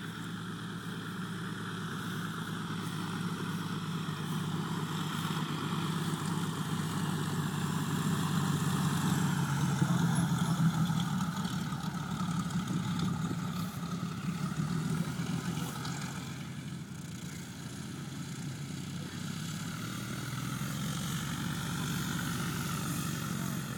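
Tow plane's piston engine running. It grows louder to a peak about ten seconds in, eases off, then rises again near the end.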